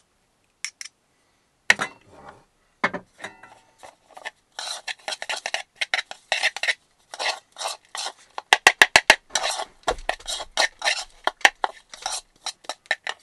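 Metal garlic press squeezing and clicking over a bowl, then a spoon stirring and scraping sun-dried tomatoes, garlic and olive oil in the bowl, in many short scraping strokes. A quick run of about five sharp taps comes a little past halfway.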